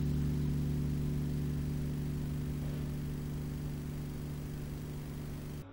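Ambient electronic music generated in real time from a light sensor's readings: a sustained drone of several steady low tones, slowly fading and cutting off suddenly near the end.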